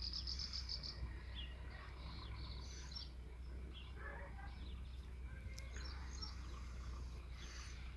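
Faint outdoor ambience: small birds chirping now and then, with an insect's pulsing trill in the first second, over a steady low hum.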